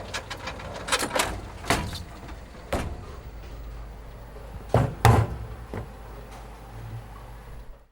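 A series of sharp knocks or thuds over a steady low rumble, the loudest a close pair about five seconds in.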